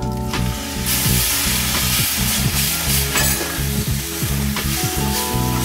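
Milk poured into hot roasted semolina in a kadhai, sizzling loudly, with the hiss swelling about a second in, and a spoon scraping and stirring through the mixture.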